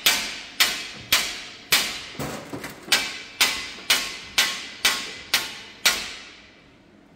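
Steel blade of a plastic-handled plastering trowel slammed against a steel-sheet table top, about two blows a second, each a sharp metallic clang that rings and fades. The blows stop about six seconds in and the ringing dies away.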